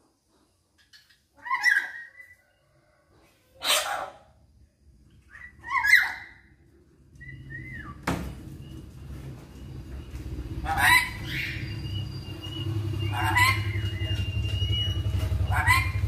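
Caged lory (nuri) giving loud, shrill calls, about six of them spaced two to three seconds apart. From about halfway a steady low rumble builds underneath and keeps going.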